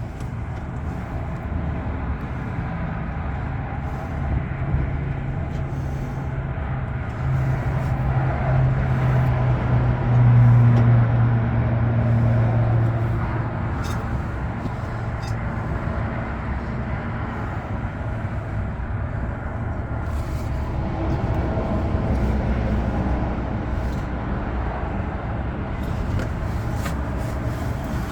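Ford 5.4-litre V8 engine running steadily with a continuous low hum, swelling louder for a few seconds about a third of the way in.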